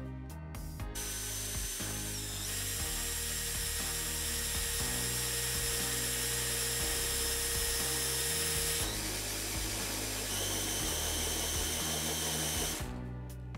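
Electric drill boring a hole into a square steel tube with a long drill bit, running steadily with a high whine from about a second in and stopping near the end.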